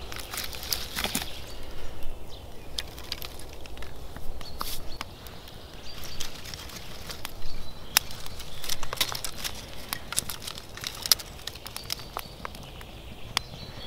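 Newly lit campfire of very dry split wood, feather sticks and twigs catching and crackling, with irregular sharp pops and ticks throughout. Near the start, dry twigs rustle as a bundle is laid onto the flames.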